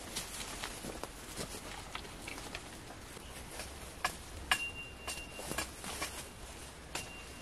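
Footsteps and rustling through undergrowth, with scattered twig snaps and clicks, the sharpest about four and a half seconds in. A thin high whistle sounds for about a second just after it and again briefly near the end.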